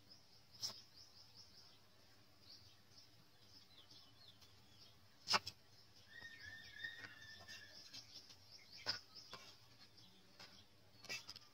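Kitchen knife chopping onion on a wooden chopping block: four sharp knocks of the blade on the wood, the loudest about five seconds in. Birds chirp faintly throughout, with one longer held call for about two seconds near the middle.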